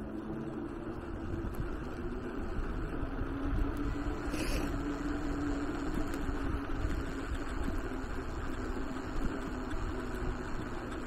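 Wind rumbling on the microphone of a camera on a moving electric bicycle, over a steady low hum from the bike's motor. A brief hiss comes about four and a half seconds in.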